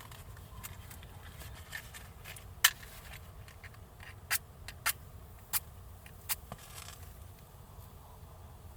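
About five separate sharp clicks or taps, spaced a second or so apart, over a faint steady low background.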